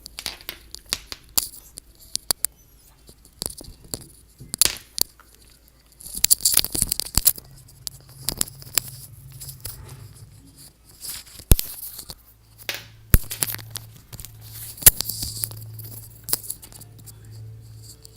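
Plastic wrap crinkling and tearing as it is handled, with many sharp clicks and taps. A low steady hum comes in about halfway through.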